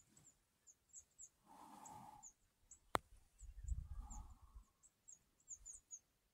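Faint, high, short chirps from a small bird, repeating irregularly two or three times a second. A single sharp click about halfway through, followed by a brief low rumble.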